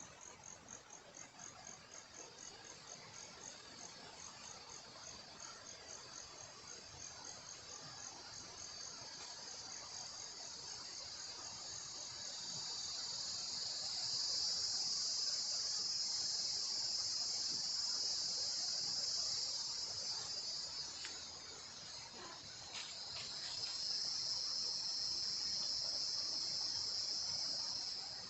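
A cicada singing, high-pitched: it starts as a fast pulsing of about three pulses a second, swells into a continuous buzz, dips briefly, rises again and cuts off near the end.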